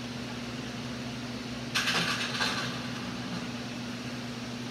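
Felt-tip marker drawing a stroke across sketchbook paper: one short scratchy rub, under a second long, about two seconds in. A steady low hum runs underneath.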